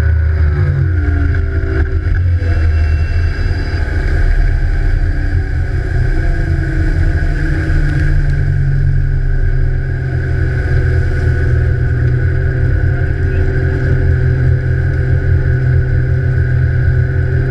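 Evinrude E-TEC G2 150 HO two-stroke outboard running under way. The engine note falls in the first couple of seconds as the throttle comes back, then it runs steadily at lower speed with water rushing past the hull.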